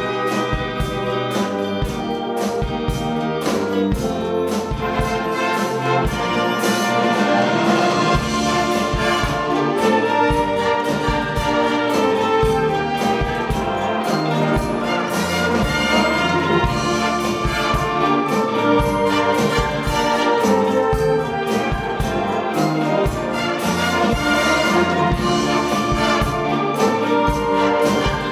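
Concert wind band playing, with trumpets, trombones and saxophones carrying sustained chords over clarinets and a steady percussion beat.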